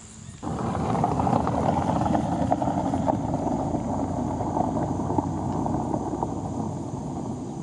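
Wind buffeting the microphone: a steady low rumble with crackle that starts suddenly about half a second in and eases slightly toward the end.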